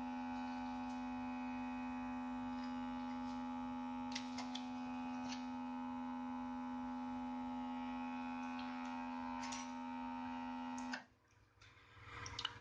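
Electric hot-air tool running with a steady electrical hum, heating the phone's screen to soften the adhesive holding the display, then switched off abruptly about eleven seconds in. A few light ticks and clicks of handling come through.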